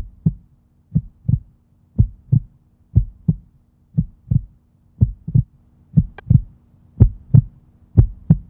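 Heartbeat sound effect: paired lub-dub thumps about once a second, getting slightly louder towards the end, over a faint steady low hum.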